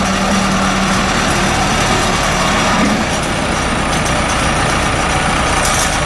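Case 445T four-cylinder diesel engine of a Case 580 Super L backhoe running steadily.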